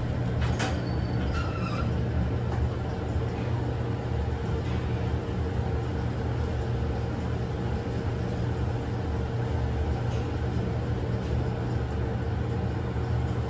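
KONE glass elevator running, a steady low machine hum with a constant mid-pitched tone, with a few light clicks about half a second in.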